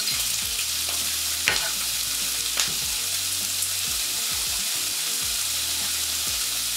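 Sliced onions sizzling steadily in hot oil in a pot, just starting to turn translucent. A few sharp knife taps on a cutting board from chopping tomatoes, the loudest about a second and a half in.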